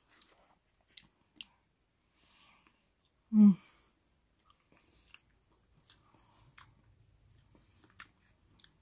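A person eating cake with a spoon: faint chewing and a few sharp clicks of the spoon, with one short, loud vocal sound from the eater a little past the middle.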